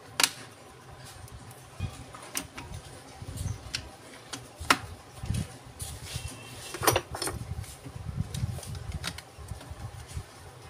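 Metal clicks and knocks as a demolition hammer's housing and parts are handled against a steel bench vise. There are a few sharp ones several seconds apart, the loudest a moment in and about halfway through, over a low uneven rumble.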